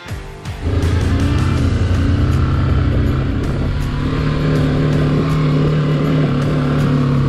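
BMW G310GS's single-cylinder engine running under way at low speed, loud and steady from about a second in.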